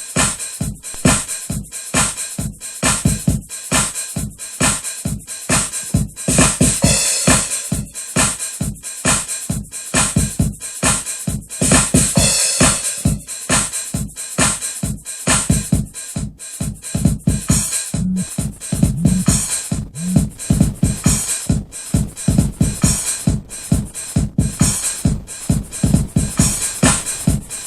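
Instrumental electronic hip-hop beat: a drum-machine rhythm with a steady, even pulse and no vocals.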